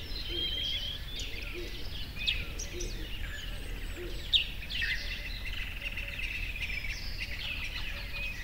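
Small songbirds chirping and trilling, several calls overlapping, with a couple of sharper, louder chirps, over steady low background noise.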